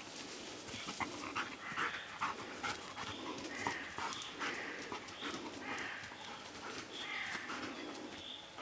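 Belgian Shepherd Groenendael panting in a steady rhythm while searching, with scattered light clicks and rustles.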